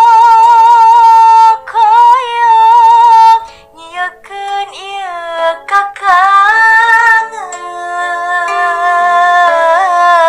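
A young woman singing a slow Sundanese song. She holds long notes that waver and bend in ornamented turns (cengkok), over a steady instrumental backing, with short breaks between phrases.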